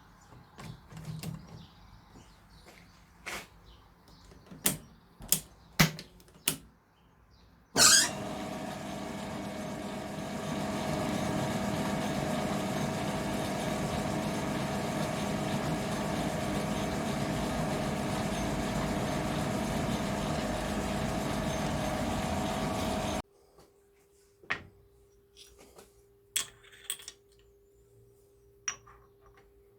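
Light clicks and knocks of handling, then a small workshop machine tool's electric motor starts sharply about 8 s in and runs steadily with a whine of many tones, getting a little louder about two seconds later, before stopping abruptly. Light clicks and a faint steady hum follow.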